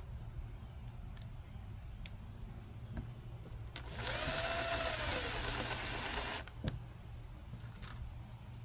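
A power drill/driver runs once for about two and a half seconds, its motor whine rising and then falling, driving a screw to fasten the deck plate. A few light clicks and taps come before and after it.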